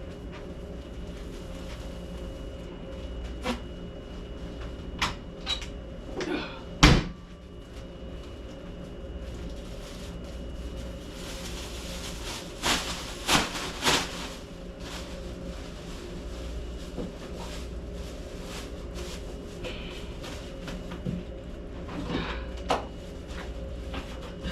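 Scattered knocks and bangs of things being handled, with a cluster about a third of the way in (the loudest near seven seconds) and another just past halfway. Underneath is a steady low mechanical hum.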